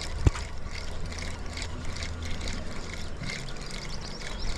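A boat motor running steadily under light water noise, with one sharp click about a quarter of a second in.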